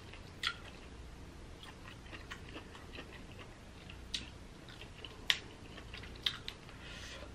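Quiet chewing and mouth sounds while eating Dungeness crab, with small ticks and a few sharp clicks as the crab leg shell is picked apart; the loudest click comes about five seconds in.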